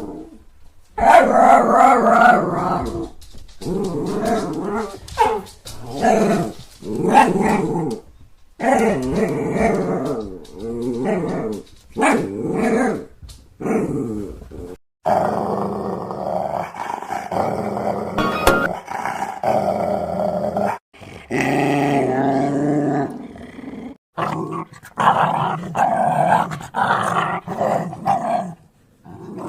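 Large dogs growling in a series of separate clips, each growl lasting a few seconds with brief breaks between them, and the occasional bark.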